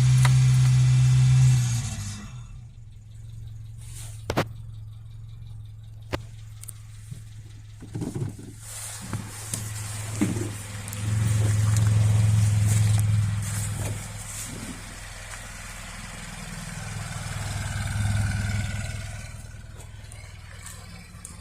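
Peugeot 205 engine running at a steady note on a cold night. It is loud for the first couple of seconds, then quieter, swelling twice more, with a couple of sharp clicks.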